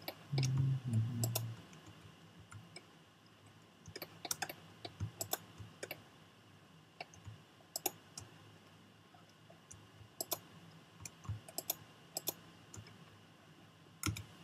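Computer keyboard and mouse clicks in irregular clusters, from Blender keyboard shortcuts and mouse selection. A low hum of about a second sounds near the start.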